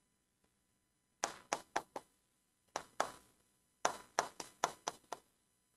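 Pen tapping on the glass of an interactive touchscreen board as words are written on it: a run of short, sharp taps in three clusters, the last and longest about a second and a half of quick taps.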